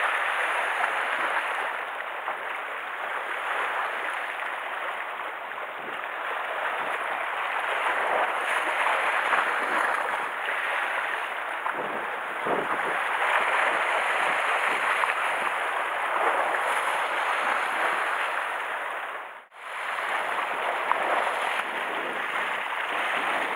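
Sea water washing and splashing against a rocky shore, a steady rush that swells and eases every few seconds. It drops out for a moment near the end.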